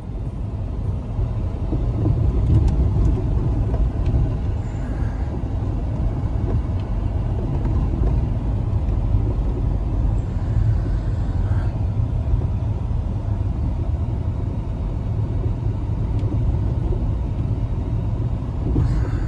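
Steady low rumble of a car driving on a snow-covered road, heard from inside the cabin: engine and road noise.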